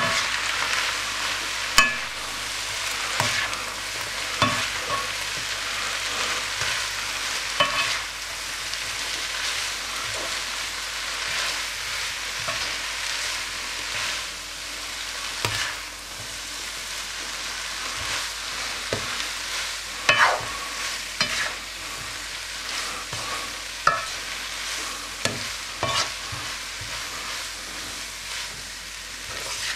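Noodles, peppers and onion sizzling steadily as they are stir-fried in a wok, with a slotted spatula scraping through them and knocking against the pan every few seconds.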